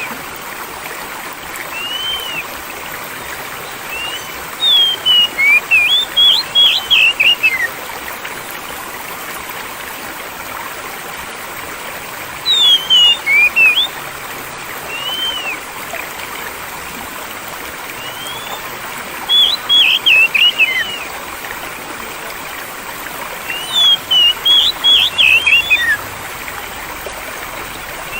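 Oriental magpie-robin (kacer) song: four bursts of quick whistled phrases with single notes between, over the steady rush of flowing water.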